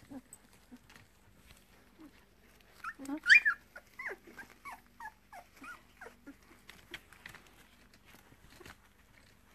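Two-week-old English Springer Spaniel puppy whining: a run of short, falling squeals starting about three seconds in, the first the loudest, dying away a few seconds later. The puppies are waking hungry for their mother's milk.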